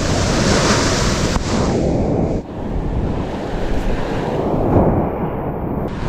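Surf breaking and washing up a sandy beach, with wind buffeting the microphone in heavy low rumbles. The hiss of the wash is brightest in the first second or so, and the sound shifts abruptly twice.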